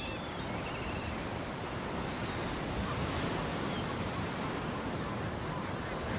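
Sea surf washing steadily onto a sandy beach, an even rushing wash of breaking waves.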